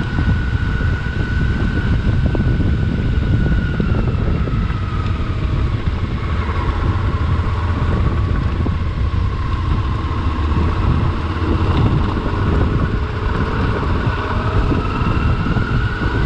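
Adventure motorcycle running at road speed, with wind noise on the microphone. Its whine drops in pitch about five seconds in and climbs again near the end.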